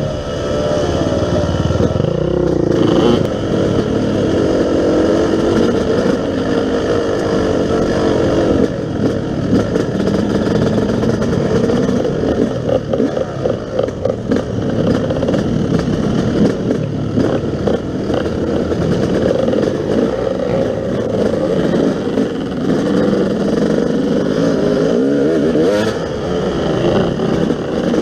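Yamaha YZ250 two-stroke dirt bike engine running under way, its pitch rising and falling again and again as the throttle opens and closes. Through the middle stretch there is a dense clatter over the engine.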